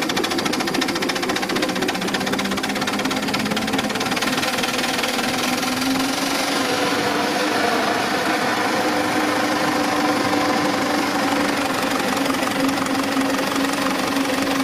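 A ride-on miniature live-steam locomotive running along the track, with a fast, steady beat under a steady hum that rises a little in pitch about five seconds in.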